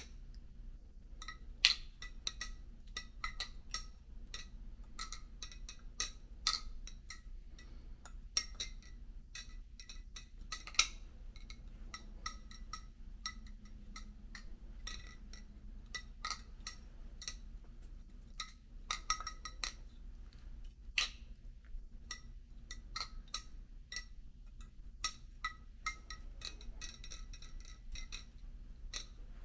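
Balisong (butterfly knife) being flipped: the handles and blade knock and clink together in quick, irregular metallic clicks, each with a short ring. Two of the clicks, about a second and a half in and about eleven seconds in, are much louder than the rest.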